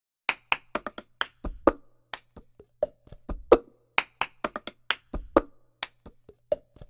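Cup-game percussion: a plastic cup tapped, flipped and knocked on a tabletop together with hand claps, in a quick, uneven rhythm of sharp clicks and dull thumps. It is the recorded cup-rhythm intro of a pop song, before the rest of the backing comes in.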